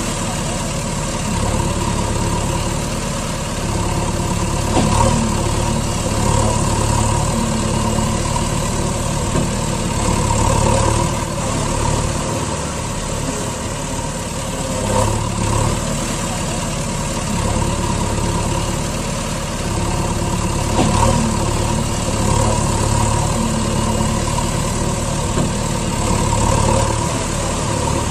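Heavy truck engine idling steadily with a low, even hum and small swells in level every few seconds, running unbroken across the picture cuts like a sound effect laid over the video.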